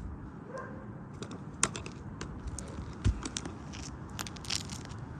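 Asphalt roof shingles being worked by hand: scattered crackles and clicks as the tabs are pried up, with two sharper knocks about a second and a half in and again about three seconds in.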